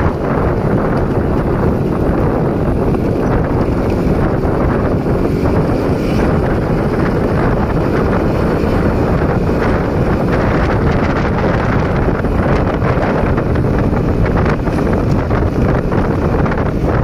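Steady wind rumble buffeting the microphone of a camera riding along on a moving motorbike, with the motorbike's engine and road noise mixed in underneath.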